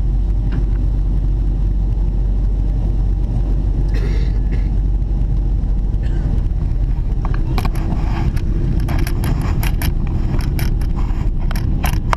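Steady low rumble of jet airliner cabin noise heard from a window seat. Scattered clicks and rustles start about seven seconds in.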